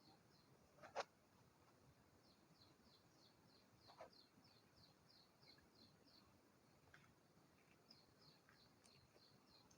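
Near silence with faint, rapid high-pitched chirping repeating about four times a second, and one sharp click about a second in.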